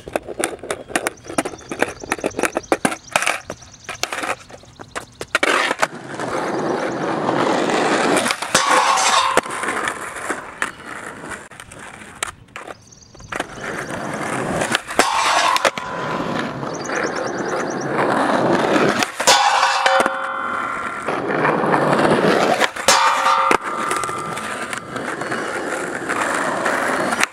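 Skateboard sessions on a metal flat bar: urethane wheels rolling on asphalt, trucks grinding along the bar in backside feeble grinds with a ringing metal scrape, and the board clacking and slapping down on landings, several times over. A quick run of clicks and knocks fills the first few seconds.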